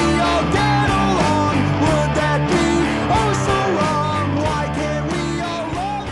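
Rock song with a singing voice over guitar and a steady beat, starting to fade out near the end.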